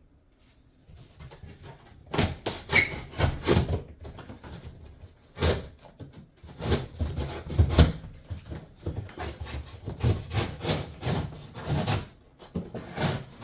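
Corrugated cardboard box being cut open: a run of irregular scraping, rasping strokes that starts about two seconds in.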